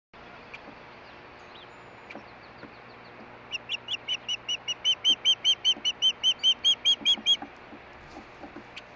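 Osprey calling: a rapid series of about twenty short whistled chirps, about five a second, starting about three and a half seconds in and growing louder over some four seconds.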